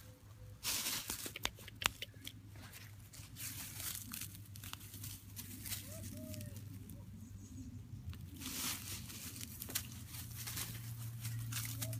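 A crinkly plastic ribbon toy and ivy leaves rustling in irregular bursts as a kitten bats and bites at it, the loudest crinkling about a second in.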